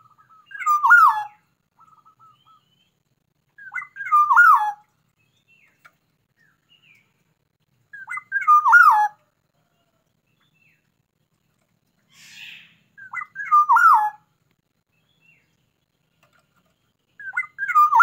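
Black-naped oriole singing: the same short whistled phrase of quick twisting notes, ending in a drop in pitch, repeated five times about every four to five seconds, a bird in full song.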